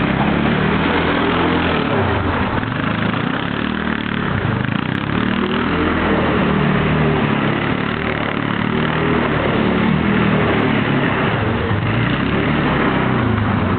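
Kymco MXU 500 ATV's single-cylinder four-stroke engine running steadily, its pitch rising and falling a little.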